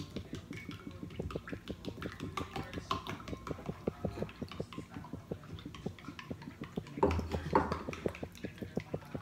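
Wire whisk clicking and scraping against a ceramic mixing bowl as brownie batter is stirred, a quick irregular run of light taps. A louder, fuller sound comes briefly about seven seconds in.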